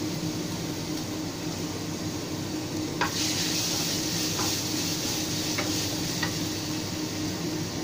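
Minced garlic sizzling in hot oil in a nonstick pan. About three seconds in, a wooden spatula starts stirring it, the sizzle grows louder, and the spatula taps lightly on the pan a few times. A steady low hum runs underneath.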